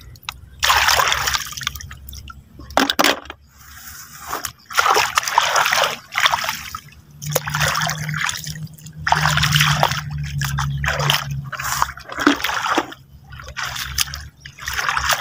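Shallow water splashing and sloshing in short, repeated splashes, about one every second or so, as someone works in the water by hand.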